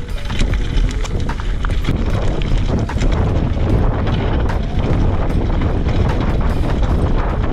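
Fuji Addy mountain bike rolling fast down a loose gravel and dirt trail: wind rushing over the GoPro's microphone, tyres running over stones, and frequent rattling clicks from the bike.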